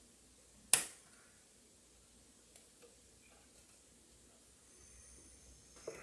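A single sharp click a little under a second in, with a few faint ticks after it: a memory slot's retaining clip snapping shut on a RAM module as it seats.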